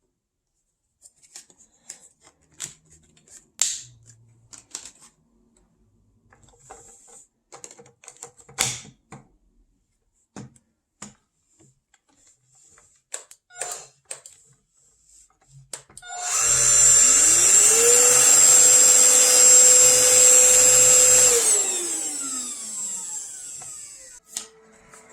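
Scattered clicks and knocks of parts being handled, then the APOSEN H120 cordless stick vacuum's motor switched on about sixteen seconds in: it spins up to a steady high whine, runs about five seconds, and winds down after being switched off.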